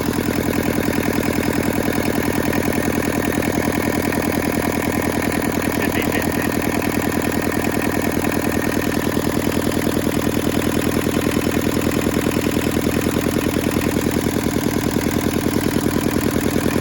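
Hinomoto E150D tractor's Toyosha diesel engine idling steadily with an even beat. It is being run to put a couple of heat cycles in it on fresh oil.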